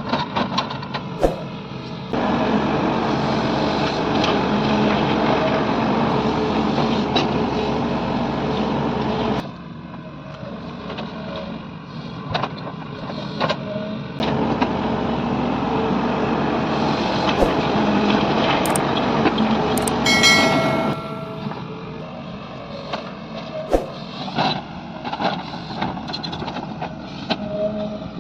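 Walking excavator's engine running, louder for two stretches of several seconds under load and dropping back to a lower level between, with scattered sharp clanks.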